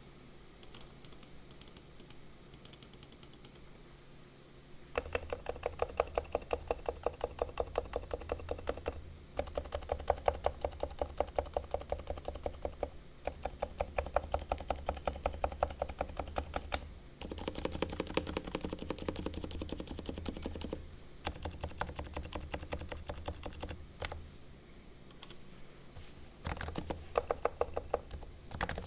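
Typing on a Realforce R2 silent Topre electrostatic-capacitive keyboard, freshly lubed with Krytox on the sliders and springs. Lighter, scattered keystrokes over the first few seconds give way to fast, even runs of muted keystrokes broken by short pauses.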